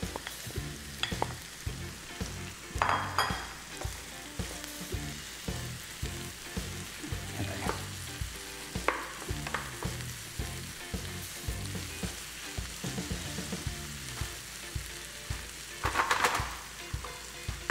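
Sausage, onions, garlic and freshly added mushrooms sizzling in a frying pan, with a steady hiss and frequent clicks and scrapes of a utensil stirring against the pan, louder scrapes about three seconds in and near the end.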